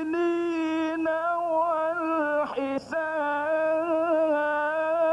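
A male qari chanting verses of the Quran in the melodic mujawwad style, holding long ornamented notes on a steady pitch. He breaks off for a quick breath about two and a half seconds in, then takes up the same note again.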